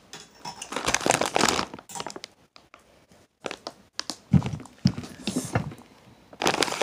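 Crinkling and rustling close to the microphone, with a few sharp knocks in the second half, as things are handled right at the recording device.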